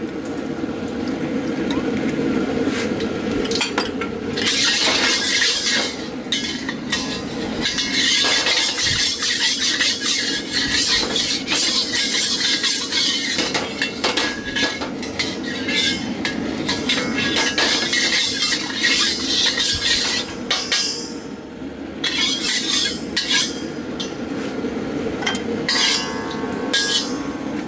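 Oil being wiped and spread around a hot wok to season it, with a metal wok spatula scraping and clinking against the steel. Underneath runs the steady roar of the propane wok burner.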